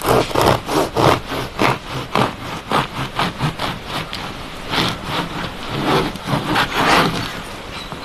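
Hand saw cutting through wood in quick back-and-forth strokes, about three a second, slowing and becoming more uneven in the second half.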